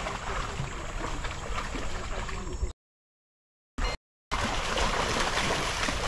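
Shallow creek water splashing and burbling as dogs wade through it. The sound cuts out completely for about a second and a half near the middle, broken by a brief blip.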